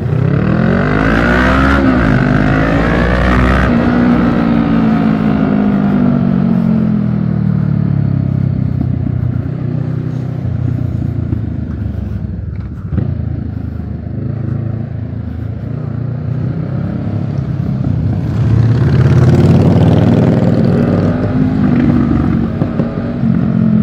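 Motorcycle engine running while riding, its pitch rising as it accelerates, then slowly dropping, and rising and falling again near the end, with wind and road noise.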